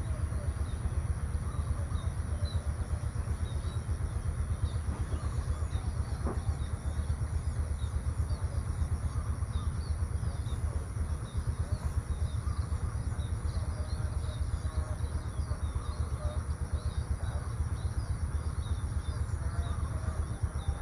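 Outdoor morning ambience of small birds chirping over and over, with a steady high insect drone and a constant low rumble underneath.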